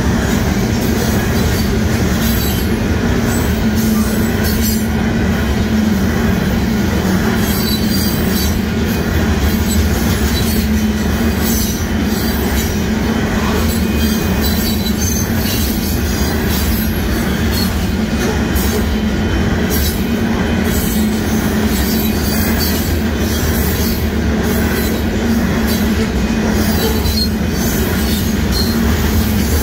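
Union Pacific freight train's covered hopper cars rolling past at speed: steel wheels on rail making a steady loud rumble with a constant hum, and scattered light clicks and clanks.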